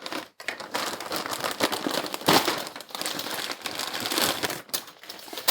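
Packaging crinkling and rustling as it is torn open by hand, with irregular sharp crackles and a louder crackle a little over two seconds in.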